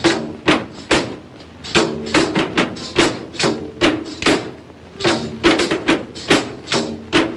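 Music carried by sharp percussive beats in a steady rhythm, about two to three hits a second, over a sustained pitched accompaniment.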